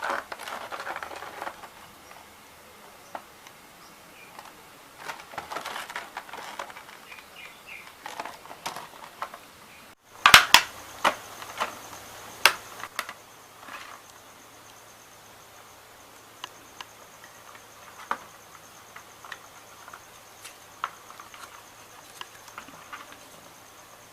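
Hands unboxing a plastic toy pistol: irregular bursts of packaging crinkling and rustling, then about ten seconds in a cluster of loud sharp clicks and knocks from handling the toy, followed by scattered lighter clicks.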